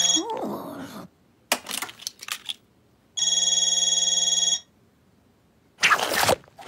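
Cartoon toy mobile phone ringing with an electronic ringtone: a ring fades out at the start, and one full ring of about a second and a half comes a few seconds in. There are a few short clicks between the rings and a brief loud burst of noise near the end.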